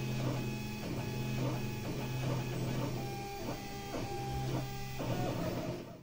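A 3D printer's stepper motors whining in steady pitched tones that jump abruptly to new pitches every fraction of a second as the print head moves, over a steady low hum; the sound cuts off sharply at the end.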